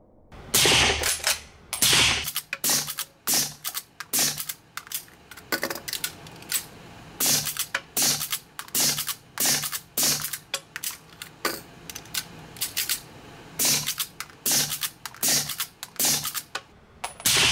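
Rapid series of suppressed rifle shots, about two a second, fired through an aimSport aimZonic Triton 50 Sneezer suppressor during a sustained-fire stress test of the suppressor.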